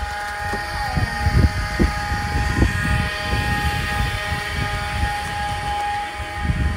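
Wind buffeting the microphone in uneven low gusts, over a steady faint hum of several high tones.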